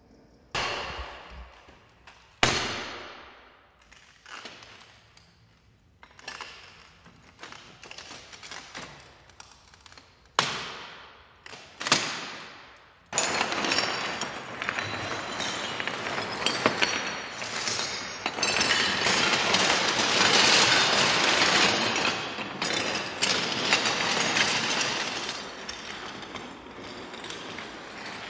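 A series of sharp crashes, each ringing away over a second or so, then about halfway through a dense, continuous clatter and clinking of small hard objects.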